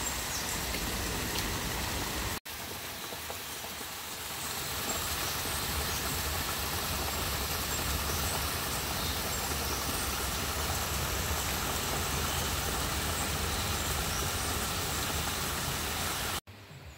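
Small waterfall splashing into a shallow rock pool: a steady rush of falling water, broken for an instant a couple of seconds in.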